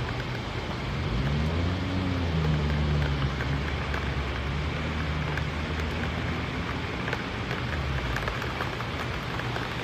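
Steady rain and wind noise during a storm. A low humming drone sets in about a second in, rises in pitch, and fades around eight seconds.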